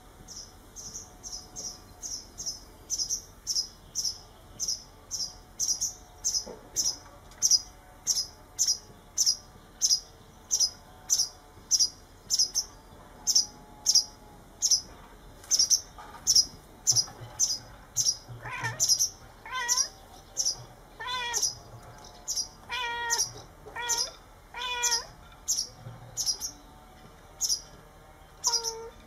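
Short high-pitched chirps repeat evenly, about two a second, all through. In the second half a cat meows several times in a row, and once more near the end.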